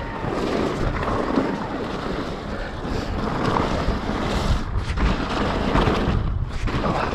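Mountain bike riding fast down a dirt trail: steady wind buffeting the camera microphone over the rumble of the tyres on the ground.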